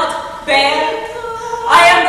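Unaccompanied voices singing long held notes, several layered at once, with a new vocal entry about half a second in and another, louder one near the end.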